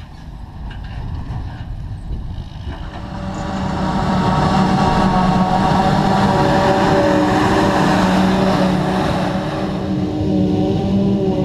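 Silage-harvesting machinery (a John Deere self-propelled forage harvester and tractor) running. A low engine rumble is joined about three seconds in by a much louder steady whine with several pitches, which dips briefly near the end.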